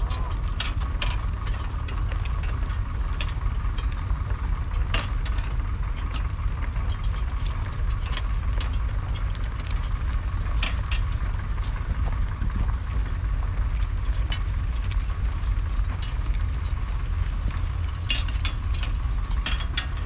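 Trace chains and harness clinking and the steel horse plough rattling in irregular clicks as a pair of draught horses pulls it through the soil, over a steady low rumble.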